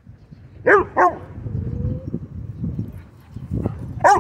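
Dog barking during play: a quick pair of sharp barks about a second in, and another near the end.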